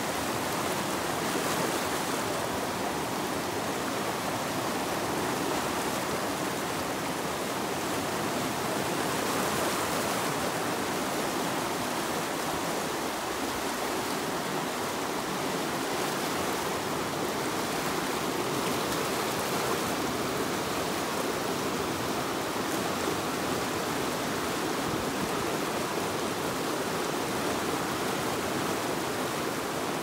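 River rapids: whitewater rushing over and around boulders, a steady, unbroken rush of water.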